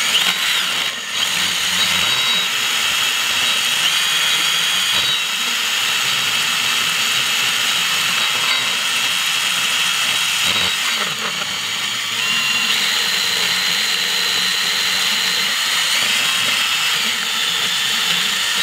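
Carbide burr in a high-speed rotary tool milling the cast aluminium of a cylinder-head port: a steady high-pitched whine with a grinding edge, its pitch stepping slightly as the burr bears on the metal, cutting off at the end.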